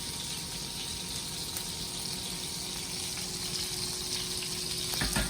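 Breaded turkey pieces frying in a pan of oil and butter, a steady sizzling hiss, with a short knock a little before the end.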